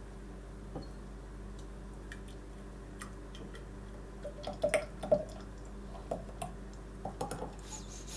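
Thick, freshly cooked kiwi-and-lime jam pouring from a bread-maker pan into a glass jar: soft drips and plops, loudest about halfway through.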